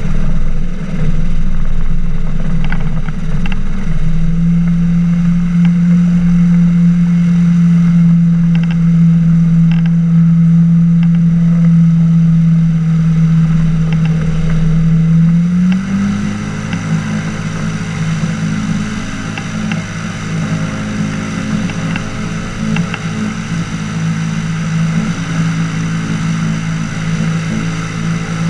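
Flying inflatable boat's engine and pusher propeller running steadily under power as the hull skims the water, heard from a camera on the craft. About halfway through, the engine note steps down and turns a little quieter, with more water and wind hiss over it.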